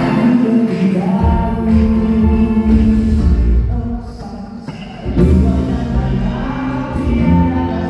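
Live band playing a song with singing at a sound check. Deep bass comes in about a second in, the music thins out around four seconds in, and the full band comes back in just after five seconds.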